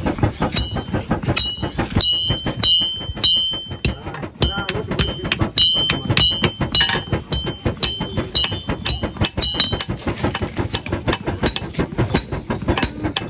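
Hand hammer striking a red-hot blade on a steel anvil in a quick run of blows, many of them leaving a short high metallic ring; the ringing stops about ten seconds in while lighter strikes go on.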